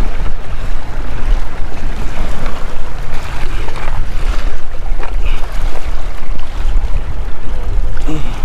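Strong wind buffeting the microphone in uneven gusts, with sea waves washing against the jetty rocks underneath.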